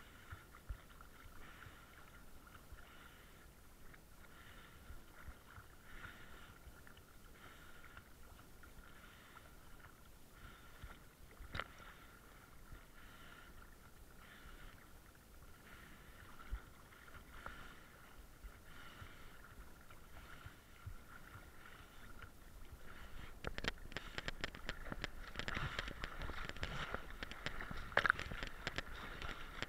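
Boat motor running with a low, steady hum. In the last several seconds water splashes and sloshes against the camera, louder and full of small crackles, peaking near the end.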